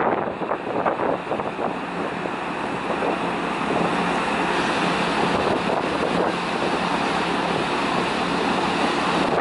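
Steady rush of wind and water on the open deck of a moving car ferry, with wind buffeting the microphone in small gusts.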